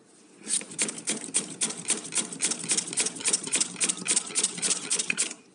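Peeled raw potato slid rapidly back and forth over the slicing blade of a stainless-steel grater, cutting chip slices: a steady run of rasping strokes, about five a second. It starts about half a second in and stops just before the end.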